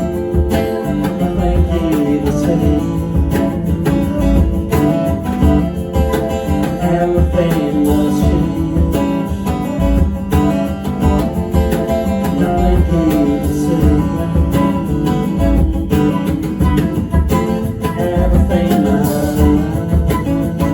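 A band playing a song led by strummed guitar, with a steady low beat.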